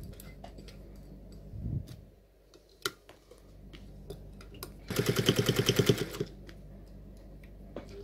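Sewing machine stitching in one short run of about a second, about halfway through, with rapid, even stitches at about a dozen a second. Before it come a soft thump and a sharp click as the work is handled under the presser foot.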